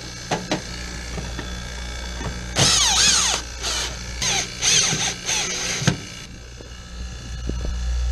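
Cordless drill-driver driving screws through the sheet-metal service cover of an air-conditioner outdoor unit: its motor whines in four or five short runs from about two and a half to six seconds in, the pitch rising and falling, with a few light clicks beforehand.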